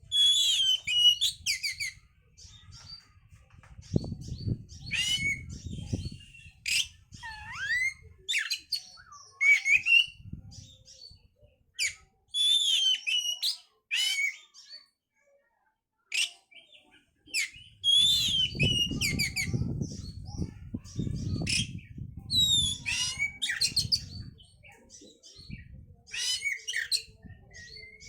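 Oriental magpie-robin (kacer) singing a long, varied song of quick whistled sweeps and chattering notes, with brief pauses between phrases. A low rumbling noise sits under the song twice.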